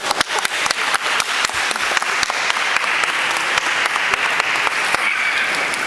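Spectators applauding, a dense patter of hand claps that eases off slightly near the end.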